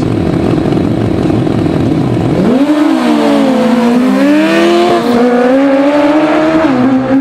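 Two sport motorcycles at a drag-race start: engines held at high revs on the line, then launching about two and a half seconds in and accelerating hard, the engine note climbing and dropping back with each upshift.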